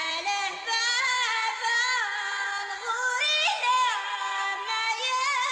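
Music: a high female voice singing a sliding, winding melody.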